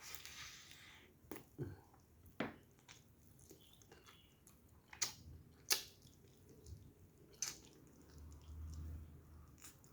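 Close-miked eating: wet chewing and lip smacks from a mouthful of chicken and noodles, with a handful of sharp clicks scattered through it.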